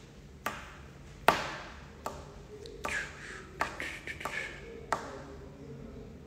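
Finger snapping in a steady beat, about one snap every three quarters of a second, the loudest about a second in.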